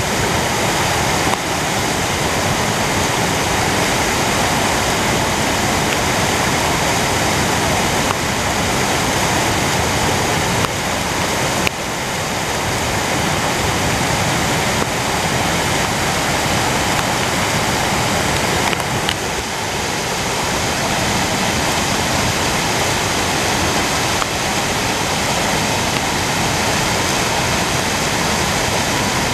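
Floodwater in a swollen creek rushing and churning through whitewater rapids: a loud, steady, even rush of water.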